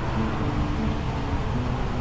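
Steady low rumble and hiss of background noise, with faint soft music notes held briefly and changing pitch over it.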